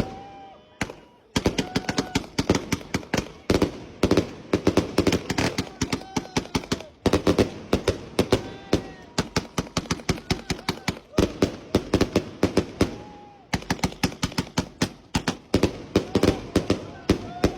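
Strings of firecrackers going off in rapid runs of sharp cracks, several bursts with brief pauses between them.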